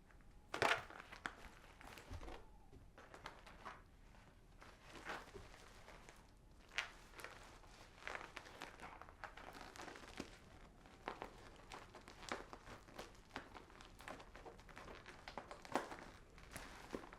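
Household handling noises in a small room: irregular rustling and crinkling with scattered light clicks and knocks, the sharpest knock about a second in.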